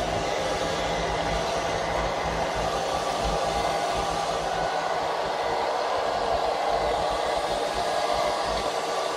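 Panda X500 Pet Series robot vacuum running as it cleans: the steady whir of its suction motor and airflow, with a faint hum held at an even level.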